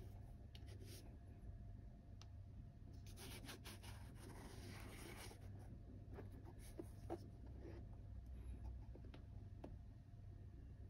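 Faint scratchy rustling of a new leather sneaker being turned over in the hands, louder for about two seconds in the middle, with a few light clicks near the end, over a low steady hum.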